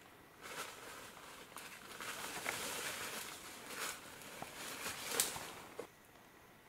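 Footsteps crunching and rustling through dry leaf litter, an irregular run of crackles with the loudest one about five seconds in.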